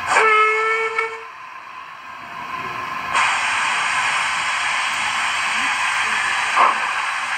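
Sound-fitted model of an Austerity saddle-tank steam locomotive giving one short whistle blast. About three seconds in, a loud steady steam hiss starts and keeps going.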